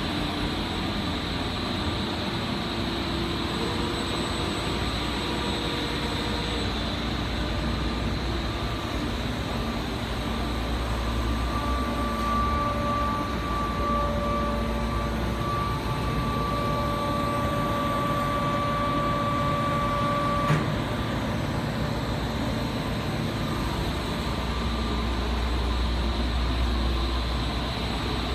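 Steady fan and airflow noise of a MANN+HUMMEL ScandMist 350D oil-mist separator and its extraction ducting running. A thin whine joins about twelve seconds in and stops with a click about eight seconds later.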